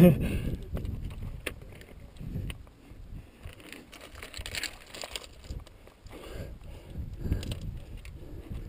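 Wind buffeting the body-worn camera's microphone while climbing a chimney of loose volcanic rock, with a sudden loud bump right at the start and a few sharp knocks of rock shifting under hands and feet.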